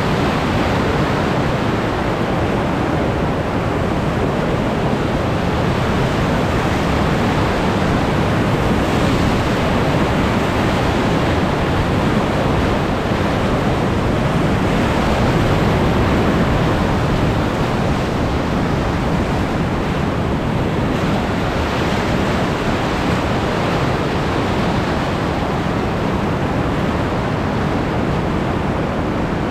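Loud, steady rush of whitewater rapids close around a boat running the river.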